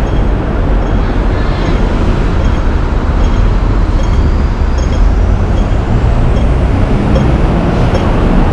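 Steady city road-traffic rumble beneath a flyover, deep and continuous. A faint regular ticking, about one tick every three-quarters of a second, comes from a pedestrian crossing signal.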